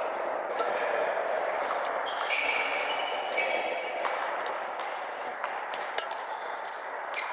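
Shoes squeaking twice on a badminton court floor during footwork, with scattered sharp clicks over a steady hiss of hall noise.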